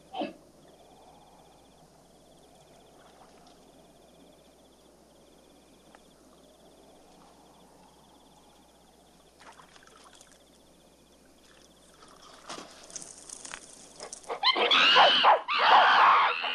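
Over a faint hush, a man-ape gives one short cry at the very start. From about twelve seconds in, scattered calls build, and about two seconds later a troop of man-apes breaks into loud shrieking and screaming.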